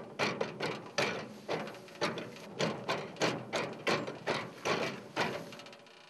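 Pedal-operated washing machine running, its mechanism clacking in a quick rhythm of about three knocks a second, then dying away near the end.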